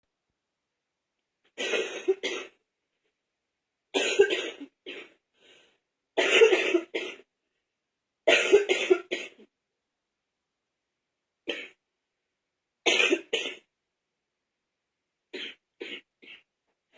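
A woman's wet, chesty cough from a cold: about seven short bouts of two or three coughs each, a couple of seconds apart, the last few quieter.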